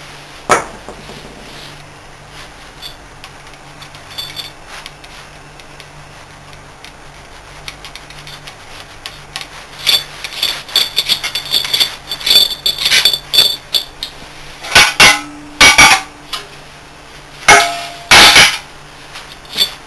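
Metal-on-metal clinking as the steel end-cover bolts of a Bitzer V4 semi-hermetic compressor are undone with a spanner and taken out. Light rattling clinks start about halfway through, and several loud, ringing metallic clanks follow near the end.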